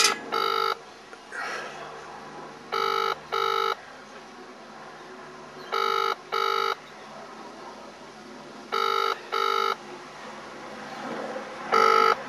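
Telephone ringback tone heard through a mobile phone's speaker: a double ring repeating about every three seconds, five times, while an outgoing call rings unanswered.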